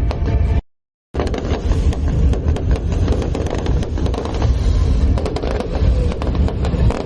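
Fireworks display: a dense run of sharp bangs and crackles over a continuous low rumble, with a brief cut to silence under a second in.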